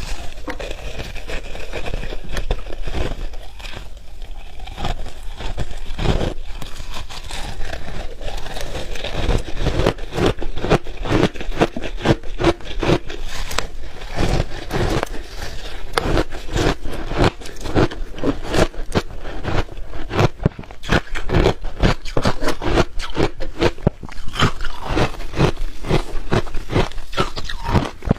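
Shaved ice being bitten and chewed: a fast, continuous run of crunches and crackles.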